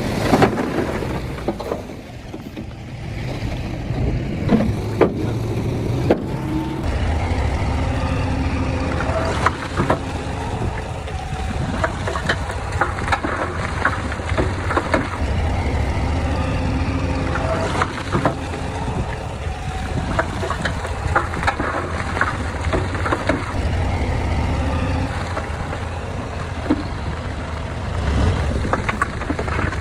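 Bulldozer's diesel engine running, with a steady low rumble that grows heavier about seven seconds in, and frequent short clanks and knocks over it.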